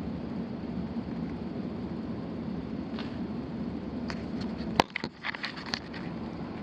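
Steady low mechanical hum of running HVAC equipment. A single sharp click comes near the end, followed by a few lighter ticks and knocks, like handling noise.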